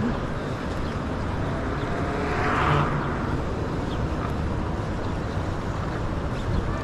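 Steady road traffic noise, with one vehicle passing louder about two and a half seconds in.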